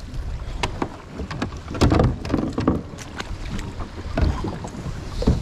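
Kayak and its gear being handled: irregular knocks and clatter against the hull. Wind rumbles on the microphone throughout.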